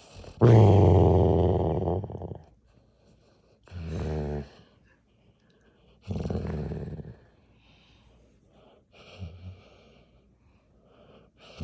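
Treeing Walker Coonhound snoring in its sleep: a run of drawn-out snores about three seconds apart, the first the loudest and the later ones fainter.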